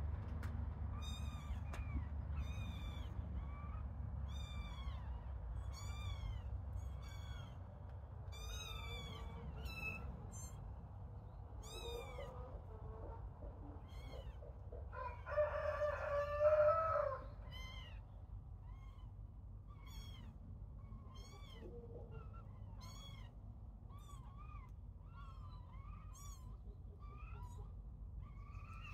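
Young kittens mewing over and over in high, thin cries, about one a second. About fifteen seconds in comes a louder, lower call that lasts about two seconds.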